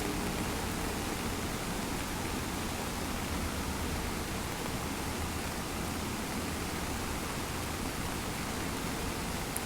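Dudhsagar Falls' water pouring down, a steady, even rush of noise that does not change.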